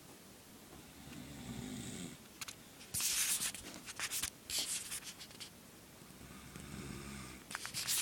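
A person snoring, two breaths: a low rumbling snore on the in-breath about a second in and again near the end, each followed by louder breathy, hissing bursts of air on the out-breath.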